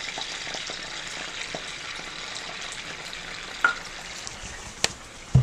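Cooking oil, sesame oil and soy sauce sizzling and bubbling in a hot stainless frying pan, a steady hiss. A few sharp clicks and a knock come near the end.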